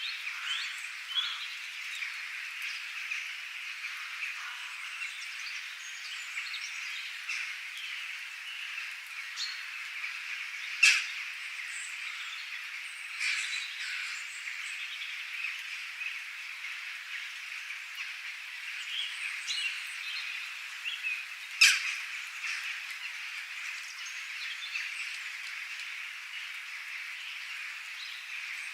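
Nature ambience of many birds chirping and calling over a steady, high, dense background chorus. Two short, sharp, louder sounds stand out, about a third of the way in and again about three quarters of the way in.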